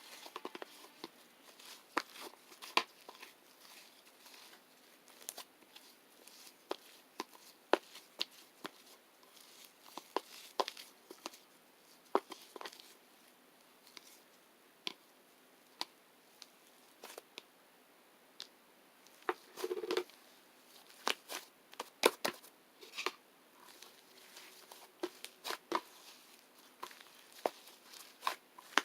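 Irregular small clicks, taps and crinkles of things being handled close to the microphone, with a short louder rustle about twenty seconds in.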